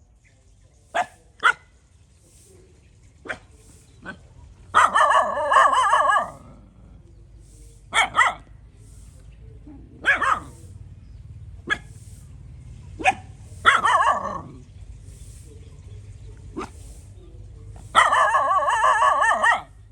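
A dog barking repeatedly: single sharp barks spaced a second or more apart, mixed with three longer drawn-out calls of more than a second each, the last and loudest near the end.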